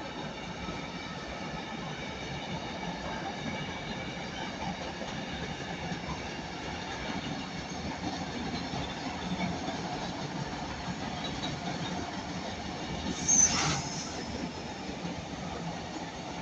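A train hauled by a DRS Class 88 locomotive passing: steady rolling of wheels on the rails, with faint high tones throughout and a brief, loud high-pitched wheel squeal about 13 seconds in.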